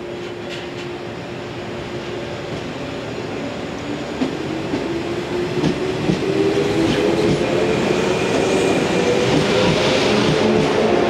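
Yellow JR West electric multiple-unit train (set B-13) pulling away from a standstill. Its traction motor whine rises in pitch as it accelerates, and the running noise grows steadily louder. Wheels click over the rail joints a few times around the middle.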